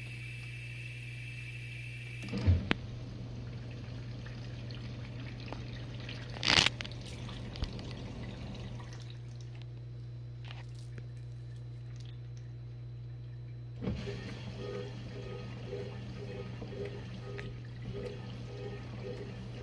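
GE Profile dishwasher running with a steady motor hum and water spraying inside the tub, with a thump about two seconds in and a loud splash of water about six seconds in. Near the end the sound changes to a pulsing rhythm about twice a second.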